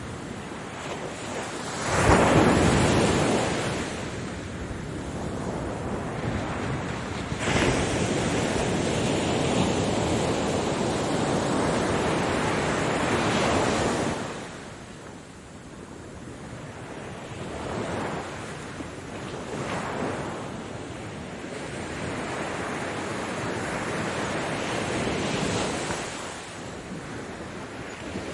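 Ocean surf: waves breaking and washing in and out. The loudest crash comes about two seconds in; a second wave breaks a few seconds later and washes on for several seconds; then smaller, quieter waves follow.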